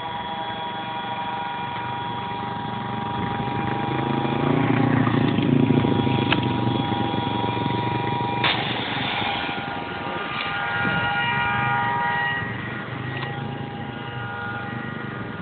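Road traffic going by: a car passes with a swell of tyre and engine rumble about five seconds in, over a steady hum with several whining tones. There are two sharp clicks, the second about eight seconds in.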